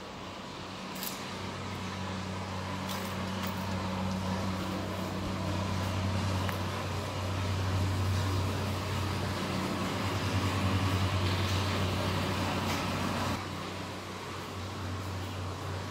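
Steady low mechanical hum over outdoor background noise, growing louder toward the middle and dropping suddenly about thirteen seconds in.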